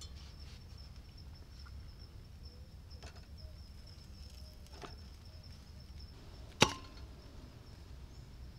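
Camp cooking handling sounds: a few light clicks of utensils and cookware, then one sharp knock about two-thirds of the way through, the loudest sound. Under them, a steady high insect drone and a low rumble.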